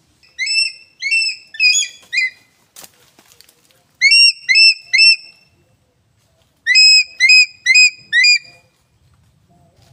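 An eagle calling in three runs of shrill whistled notes: four, then three, then five, each note a quick rising-then-falling whistle. A brief crackle comes between the first and second run.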